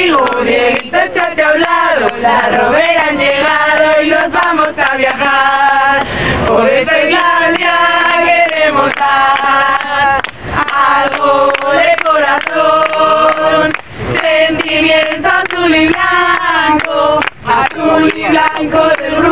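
A group of rover scouts, men and women together, singing a song in chorus.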